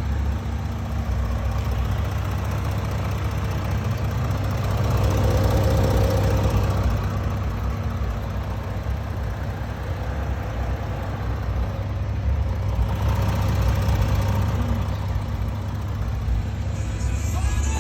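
Audi S4's 3.0 TDI V6 diesel engine running with a steady low rumble, its sound swelling and easing off twice.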